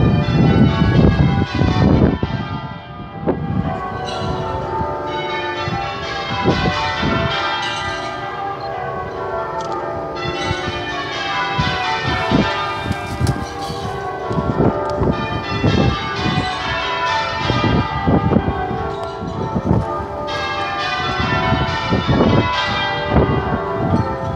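Church bells ringing a peal from the spire, one strike quickly following another so their ringing tones overlap.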